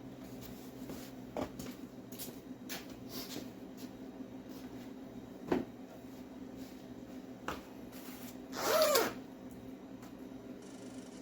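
2013 Kawasaki Ninja 300's parallel-twin engine idling steadily, circulating freshly changed oil. A few light clicks, and a brief louder rasp about nine seconds in.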